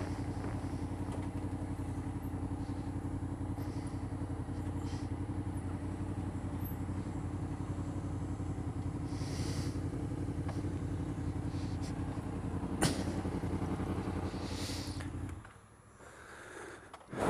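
Motorcycle engine running steadily at low revs, then dying away about fifteen seconds in as the engine stops. A single sharp click sounds a couple of seconds before that.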